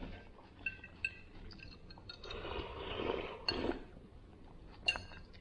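A metal fork clinks against a glass bowl a few times with short ringing taps. About halfway through comes a drawn-out slurp of dressing sipped from the tipped-up bowl. Another sharp clink of metal on glass follows near the end.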